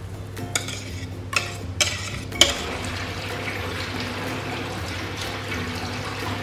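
A wire whisk beating thick vanilla custard cream in a glass bowl: a steady, rapid swishing from about two and a half seconds in. Before it come a few short bursts as the cream is poured in, and a sharp click just as the whisking starts.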